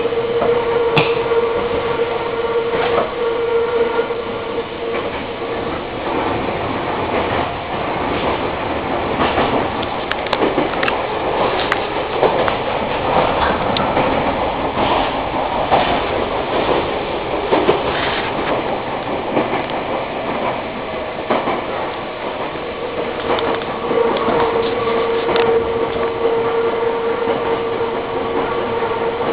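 Nankai Kada Line electric train running, heard from inside the passenger car: a steady rumble of running noise with scattered clicks of the wheels over rail joints. A steady hum is heard at the start, fades through the middle and returns near the end.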